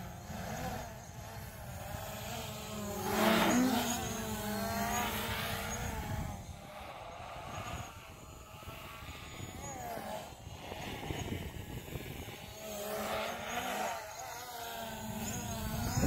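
DJI Mavic Pro quadcopter's motors and propellers whining, the pitch rising and falling as it changes speed, loudest about three seconds in, with wind buffeting the microphone.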